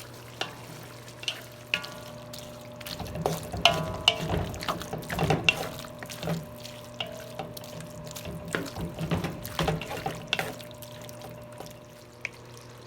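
Pork and liver cooking in a wet soy and oyster sauce mixture in a pan, being stirred: liquid sloshing and bubbling with scattered clinks and knocks of the utensil against the pan, busiest from about three to eleven seconds in.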